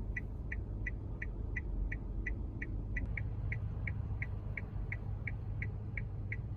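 Car turn-signal indicator ticking at an even pace, about three ticks a second, over the low steady rumble of the car.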